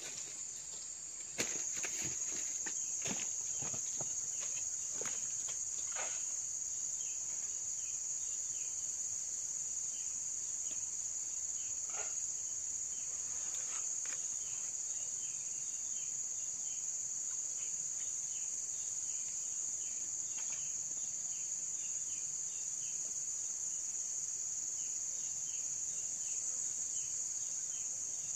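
Steady high-pitched insect drone that starts abruptly about a second and a half in, with a fainter insect chirping in quick short notes over it. A few sharp clicks and knocks sound in the first few seconds.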